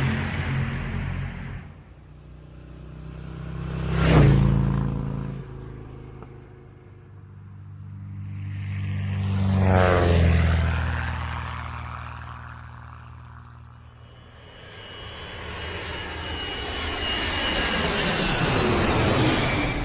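A series of engine pass-bys. The first rushes past about four seconds in. The second comes around ten seconds, its engine pitch falling as it goes by. Near the end a long, loud approach builds with a high whine, like an aircraft.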